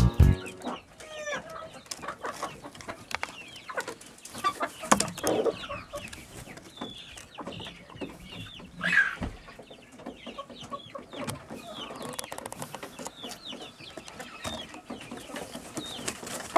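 Pushkin breed chickens clucking in a flock, with short calls throughout and one louder call about nine seconds in, among many short clicks.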